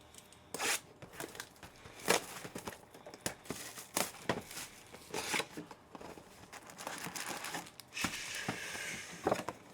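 Trading-card packaging being handled and opened by hand: a string of irregular crinkles and rustles of wrapper, with a longer stretch of tearing and crinkling about seven seconds in.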